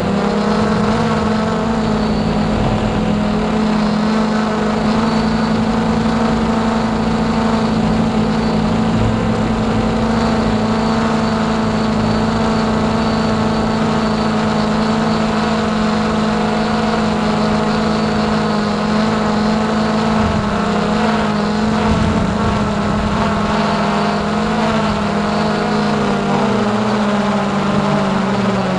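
Hubsan X4 Pro H109S quadcopter's brushless motors and propellers whining steadily in flight, the pitch shifting slightly now and then in the second half.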